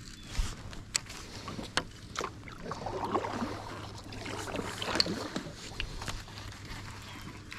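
Kayak on the water: a few sharp knocks on the hull in the first couple of seconds, then a stretch of irregular water sloshing and splashing against the boat.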